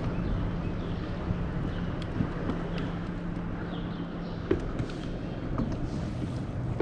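Wind on the microphone and water lapping against a small boat, over a steady low hum, with a few faint ticks.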